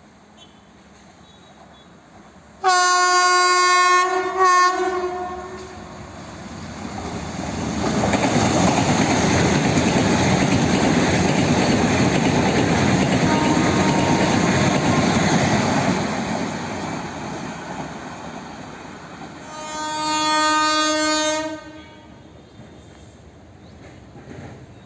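WAP-5 electric locomotive's horn sounding twice in quick succession, a loco pilot's acknowledgement, followed by the loud rumble and clickety-clack of the express train running past on the track for several seconds. About two seconds later, the horn sounds again for about two seconds, lower in pitch.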